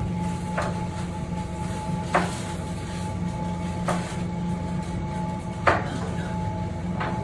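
Steel fish-bone tweezers clicking as they pull pin bones from raw red mullet fillets, a sharp click about every second and a half, over a steady low hum.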